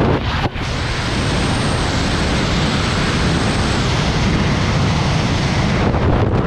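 Freefall wind rushing over a skydiver's camera microphone, a loud steady rush with a brief dip about half a second in.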